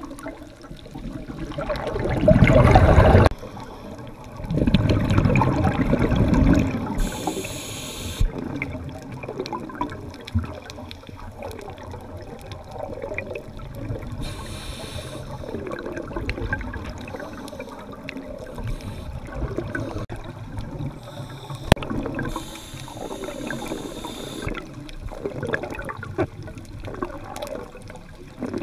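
Scuba regulator breathing heard underwater: two loud rushes of exhaled bubbles a few seconds in, then quieter bubbling with a few short hisses between.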